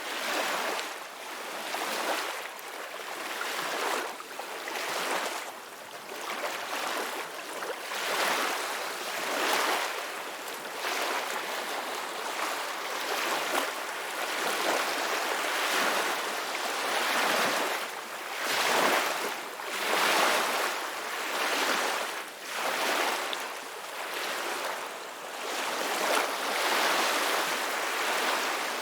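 Ocean waves: a steady hiss of surf that swells and eases every second or two as waves break and wash in.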